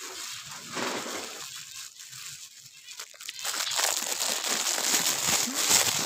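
Plastic bag of birdseed crinkling and rustling as it is handled, louder over the second half.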